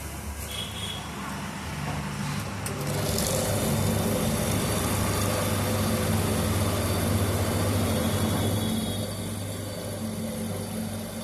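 Steady motor hum over a noisy rumble. It grows louder about three seconds in and eases slightly near the end.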